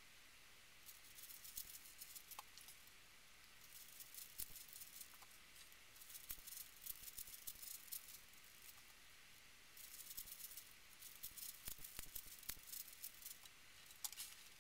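Plastic 5x5 puzzle cube being turned by hand: faint clicking and clattering of the layers, in several short runs of quick turns with brief pauses between them.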